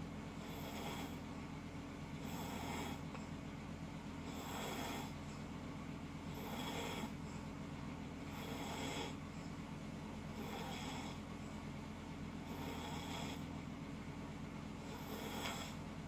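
A person snoring in their sleep, one noisy breath about every two seconds.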